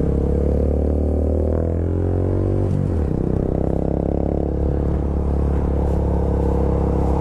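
Motorcycle engine pulling away under acceleration, rising in pitch for about three seconds, then dropping sharply at a gear change and running on steadily, with wind rush.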